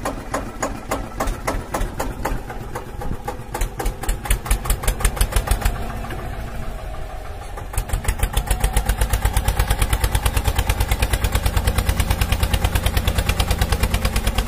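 Tractor engine running at a steady idle with a fast, even beat of low knocks; it becomes louder and more regular about eight seconds in.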